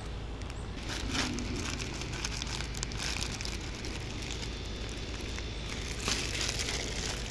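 Clear plastic bag of screws crinkling as it is handled, in bursts about a second in, around three seconds in, and again near the end.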